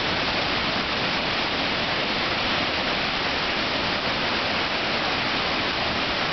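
Victoria Falls at peak flow: a steady, even rush of a huge mass of water plunging into the gorge.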